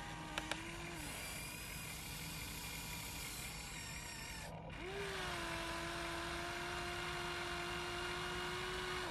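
Electric motor whine from a radio-controlled Huina excavator as it works its arm and bucket, a short burst at the start and then a steady whine from about halfway on. Two sharp clicks come just after the start.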